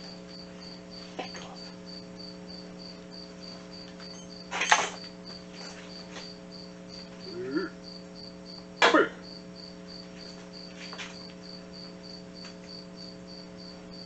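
Metal knocks on a steel welding bench as workpieces are handled, one about five seconds in and a louder one about nine seconds in, with a short squeak between them. Under them runs a steady electrical hum and a faint high chirp repeating about twice a second.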